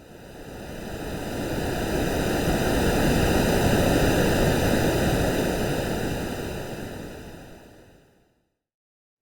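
AI-generated ocean-wave sound: one swell of rushing surf noise that builds over about three seconds, peaks, and fades out about eight seconds in.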